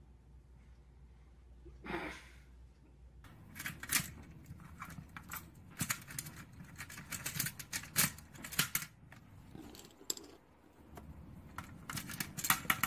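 Plastic Connect Four discs and grid clicking and clattering as they are handled and dropped into the slots: a rapid, irregular run of sharp clicks from about three seconds in.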